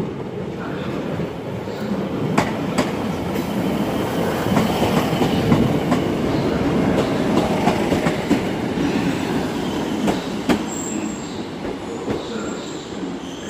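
A Class 150 Sprinter diesel multiple unit passing close by at low speed, its underfloor diesel engine running and its wheels clicking over rail joints. The sound swells to its loudest around the middle, and a thin high wheel squeal comes in near the end.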